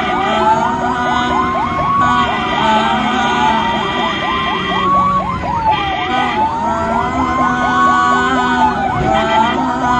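Ambulance siren sounding continuously: a slow wail rising and falling about once every three seconds, overlapped by a fast warbling yelp. A steady tone cuts in and out several times over a constant low traffic rumble.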